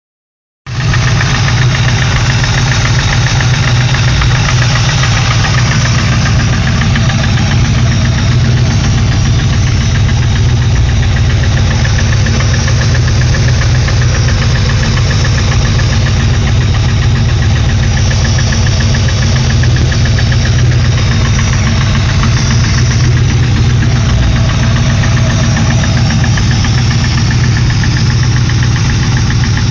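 Engine running at a steady speed with a fast, even tapping from the top end, a noise that was not there before new camshafts were installed. Its cause is unknown to the owner.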